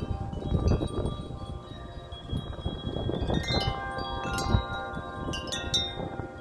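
Wind chime clanging in gusty wind, its tubes struck over and over and ringing on at several pitches. Wind rumbles on the microphone underneath.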